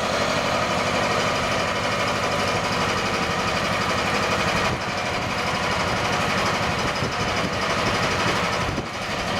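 Mini excavator's engine running while a home-built mower attachment spins its blade, driven by a belt from a small pulley on a hoses-fed motor, on its first test run. A steady, loud mechanical clatter that dips briefly twice.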